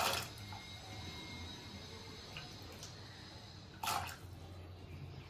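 Handfuls of wet kidney beans dropped into an empty metal pressure cooker: two short wet clatters, one at the start and one about four seconds in, with a few faint clicks between.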